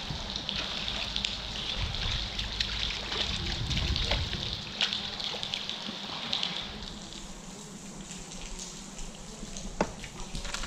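Rain pattering on the water and the boat, with water splashing and dripping as a crappie is scooped up in a landing net and lifted aboard. A single sharp knock near the end.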